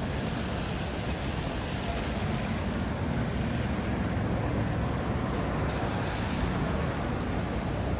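Steady hiss of rain and traffic on wet city streets, with a low rumble of passing vehicles.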